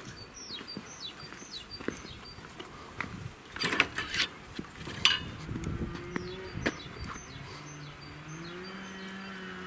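Small birds chirping with short, high, falling notes, repeated many times, along with a few sharp knocks. From about eight seconds in, a steady low drone joins them and rises slightly in pitch once.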